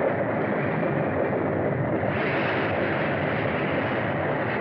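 Steady rushing noise with a low rumble underneath, even in level throughout.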